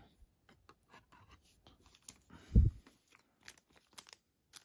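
Light clicks and rustles of a trading card and a clear plastic card stand being handled, with one low thump about two and a half seconds in.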